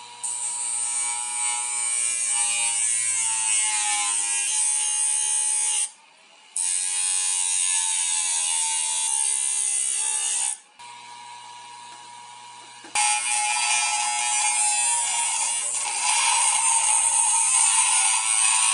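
Hard-disk spindle motor spinning a sandpaper-covered platter at high speed, a steady whine under a loud grinding hiss as a wooden stick is pressed to it, with a short break about six seconds in and only the bare whine for a couple of seconds past the ten-second mark. From about thirteen seconds a thin steel piece is ground on it, the grinding hiss loud again.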